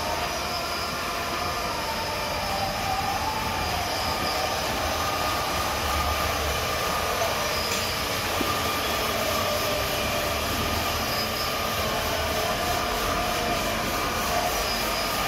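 Industrial automatic carpet washing machine running steadily, a continuous mechanical noise with faint squeals that waver in pitch.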